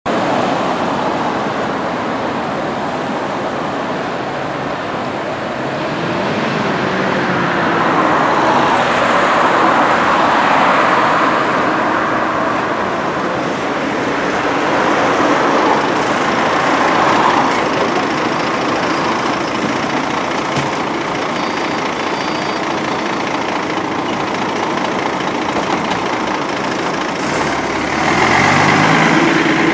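Steady road traffic: a continuous wash of engines and tyres on the road, swelling as vehicles pass, with articulated city buses driving by. Near the end a bus pulls away close by, and its engine pitch rises as it accelerates.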